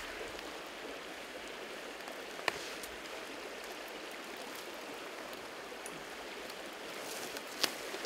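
Steady rush of a mountain stream, with a single sharp click about two and a half seconds in. Near the end come a few light clicks of dry twigs being laid over a fire-starter flame.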